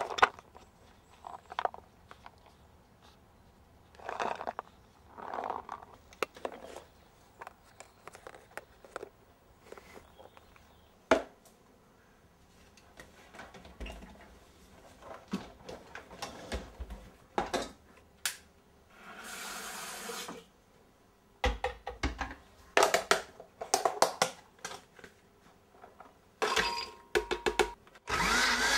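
Clicks and knocks of plastic food tubs and kitchen items being handled on a worktop, with a short steady hiss about two thirds of the way through. Near the end a countertop blender is switched on and starts running, its pitch rising.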